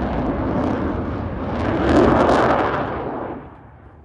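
Aircraft passing low overhead: its engine noise builds to a loud peak about two seconds in, then falls away quickly near the end.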